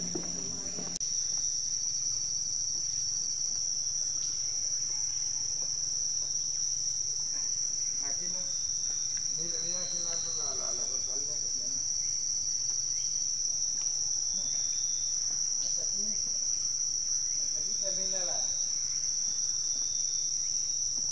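Continuous shrill drone of a rainforest insect chorus, holding one steady high note that steps up in loudness about a second in.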